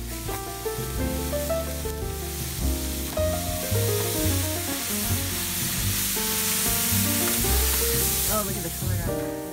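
Water poured onto a hot raku-fired ceramic sculpture, hissing and sizzling steadily as it flashes to steam, with background music underneath.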